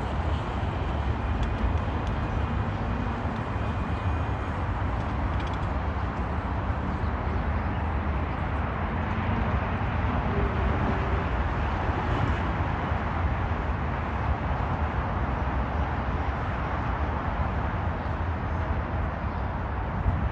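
Steady low rumbling outdoor noise with no breaks, and a few faint, brief bird chirps in the first few seconds.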